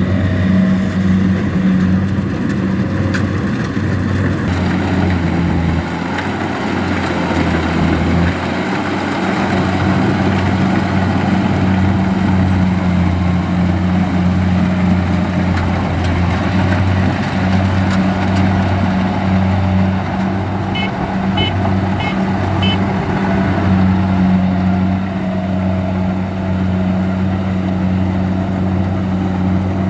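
Rice combine harvester running steadily as it cuts and threshes rice, a continuous low engine drone.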